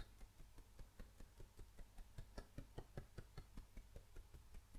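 Faint rapid fingertip tapping on the face under the eye, about five light taps a second, kept up evenly: tapping an acupressure point in EFT.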